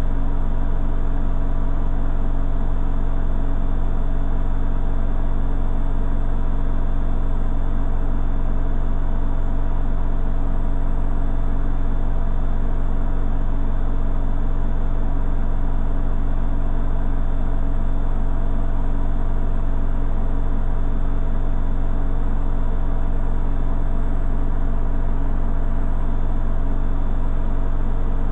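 Beko front-loading washing machine in the final minutes of its cycle, drum and motor running at a steady speed: a constant deep hum with a few steady tones over it, typical of the final spin.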